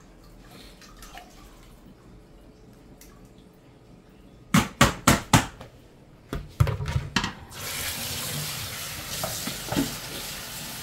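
Four sharp knocks in quick succession and a short clatter of kitchenware, then a steady rush of running water that carries on.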